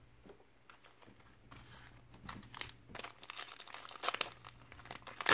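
Foil trading-card pack being handled and torn open: crinkling and tearing of the wrapper that builds up from about a second and a half in and grows louder near the end.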